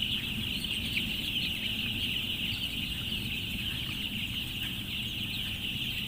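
A large flock of young broiler chicks peeping all together, a dense, unbroken chatter of high chirps over a low, steady hum.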